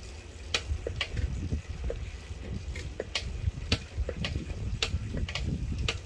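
Riding a bicycle: a steady low rumble of wind and rolling on the microphone, with a dozen or so sharp clicks at uneven intervals.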